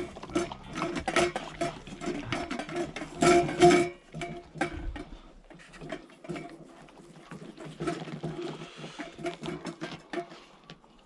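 Huskies eating and licking from stainless-steel bowls on metal stands: quick clinks, rattles and scrapes of metal, busiest and loudest about three seconds in, then thinning out.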